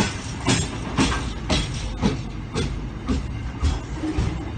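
Empty container flat wagons of a freight train rolling slowly past over a steady rumble. Their wheels clack over the rail at an even rhythm of about two clacks a second.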